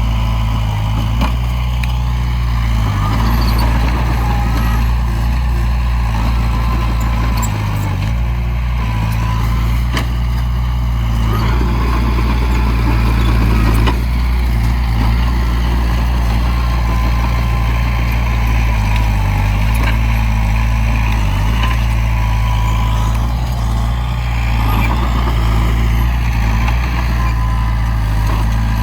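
Heavy diesel earthmoving machinery running steadily under load, with a few short knocks.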